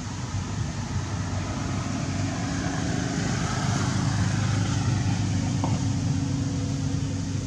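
Engine hum of a motor vehicle running nearby, a steady low drone that swells a few seconds in and eases slightly near the end.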